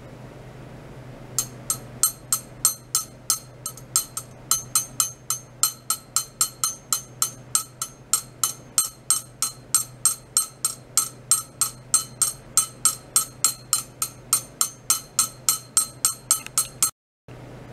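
A rapid train of sharp, ringing clicks, each at the same pitch, about four a second, starting just over a second in and cutting off near the end, over a steady low hum.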